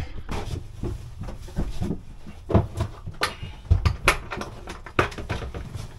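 Irregular knocks, taps and clatters of wooden-look flooring planks being handled and set down, about a dozen sharp strikes, over low thumping rumble from people moving about.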